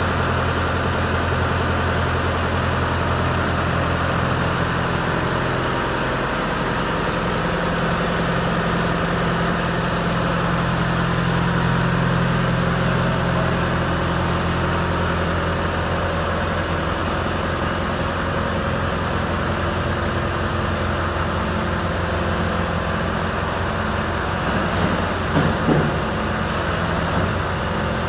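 John Deere 2750 tractor's diesel engine idling steadily, with a few brief louder sounds near the end.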